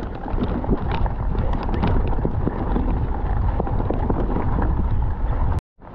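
Riding noise from a mountain bike on a rough, muddy trail, picked up by a bike-mounted camera: a steady low rumble of wind buffeting the microphone and tyres rolling, with many small knocks and rattles from the bike over bumps. The sound cuts out briefly near the end.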